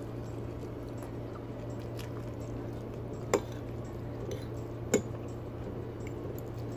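Metal fork clinking against a plate while twirling spaghetti: two sharp clinks about a second and a half apart, near the middle, over a steady low hum.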